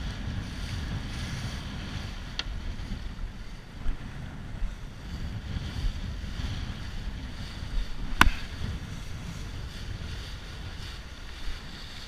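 Water rushing and splashing along the hull of a Mirror dinghy sailing fast in a fresh breeze, with wind buffeting the microphone. A small click about two and a half seconds in and a single sharp knock about eight seconds in.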